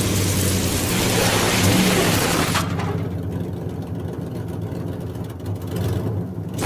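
A dubbed-in vehicle engine sound effect running with a steady low drone. A loud rushing noise lies over it for the first two and a half seconds or so, then falls away.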